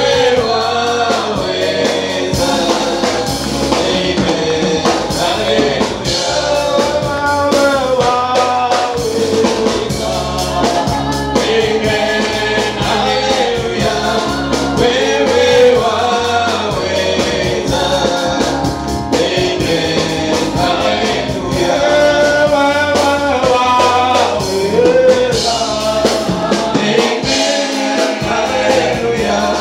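Gospel worship music: several voices singing together over a band with bass and percussion, continuous throughout.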